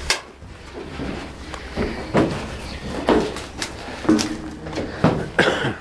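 Footsteps on corrugated metal roof sheeting: a thud with a short metallic clang roughly once a second.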